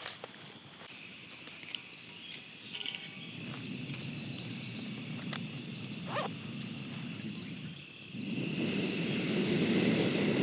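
Backpacking camp stove burner lit about eight seconds in, then running with a steady rushing hiss. Before it there are a few small clicks and short high chirps from birds or insects.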